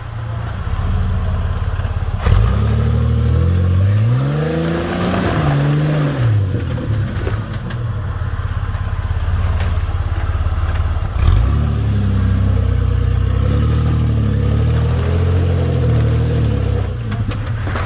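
Jeep Wrangler TJ engine revving up and down repeatedly under load as it tries to climb a waterfall, in two long bouts of throttle. A sharp bang comes about two seconds in and another around eleven seconds.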